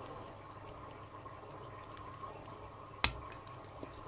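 Key being worked in an unpinned padlock plug: faint small metallic ticks and one sharp click about three seconds in.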